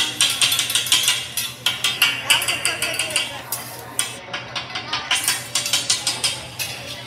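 Metal spatulas clacking and scraping on a steel teppanyaki griddle in quick, repeated strikes as fried rice and vegetables are chopped and turned.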